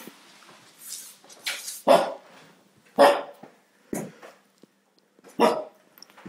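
A Shiba Inu barking with an empty aluminium drink can held in its mouth: four or five short barks, roughly a second apart.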